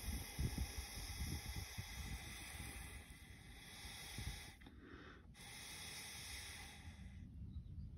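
Breath blown through a plastic straw into a sandy antlion pit, a steady, breathy hiss as the sand and dust are blown out of the funnel. It breaks off briefly a little past halfway, then resumes and stops shortly before the end.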